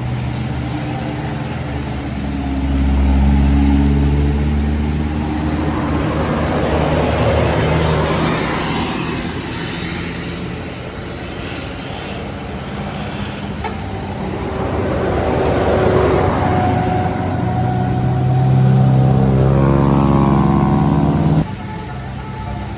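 Large diesel buses driving up a steep hill, engines running under load, with two swells of tyre hiss on the wet road as buses pass. The sound drops suddenly near the end.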